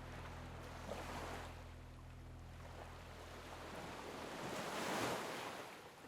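Sea waves washing onto a shore, one swell building to its loudest about five seconds in, over a steady low background drone.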